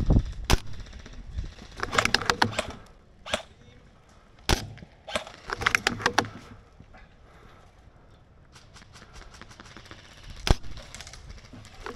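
Airsoft gunfire: short bursts of rapid clicking shots about two and six seconds in, with single sharp cracks between them and a louder single crack near the end.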